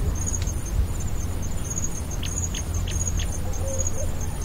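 Birds chirping: several short, sharp chirps, a few in quick succession in the middle, over a fast, steady high-pitched pulsing and a low background rumble.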